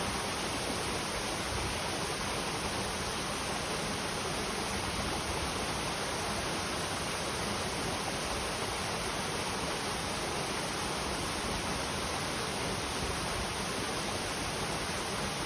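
Clear stream flowing over rocks, a steady even rush of water with no change.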